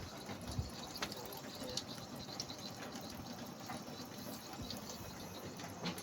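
Water running and dripping from a burst electric water heater: a steady hiss with scattered small drips and ticks.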